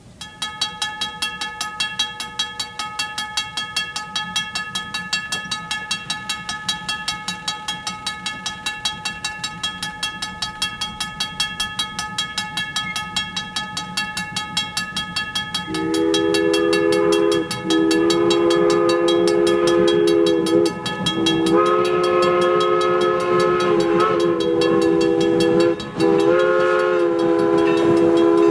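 Steam locomotive bell ringing steadily, about two or three strokes a second. About halfway through, the PRR three-chime steam whistle comes in loud over it, blown in several long blasts with short breaks.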